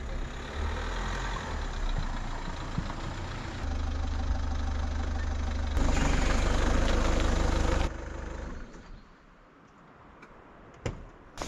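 Car engine running and a car driving past close by, heard in a few short cut clips. The sound drops away to a faint hush about eight seconds in, with a couple of sharp clicks near the end.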